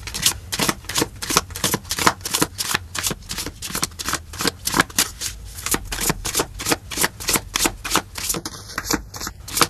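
A deck of tarot cards being shuffled by hand: quick, regular slaps of the cards, about four a second.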